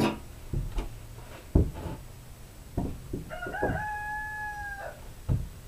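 A rooster crows once, a single drawn-out call of about a second and a half past the middle that steps up in pitch, holds and dips at the end. A few sharp knocks and thumps of handling come before and after it.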